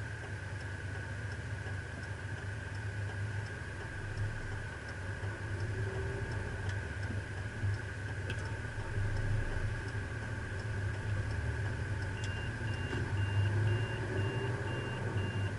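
Engine running at idle with a steady low hum, a faint regular ticking over it. About three-quarters of the way through, a quick series of evenly spaced high beeps starts, about two and a half a second, like a reversing or warning alarm.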